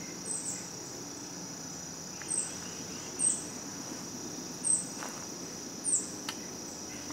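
Steady high-pitched chorus of crickets and other insects in summer woods, with five short, high chirps that fall in pitch spread through it, and two faint clicks in the second half.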